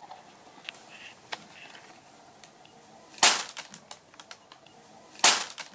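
Large plastic bag crinkling as a cat moves in and against it: two loud, short rustles about two seconds apart, with small crackles between them.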